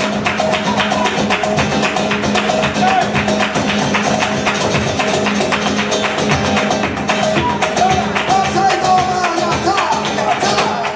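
Live flamenco: a Spanish guitar played under a fast rhythm of sharp percussive strikes. A singer's wavering voice joins in during the second half.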